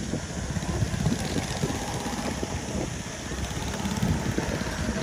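Go-kart engines running as karts lap the track, one kart passing close by near the end.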